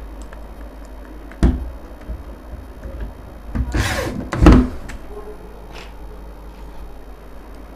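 Electric drill briefly driving a screw through the cupboard lock's plate into the wooden door: a short whirring burst about four seconds in that ends in a loud thump. A single sharp knock comes about a second and a half in.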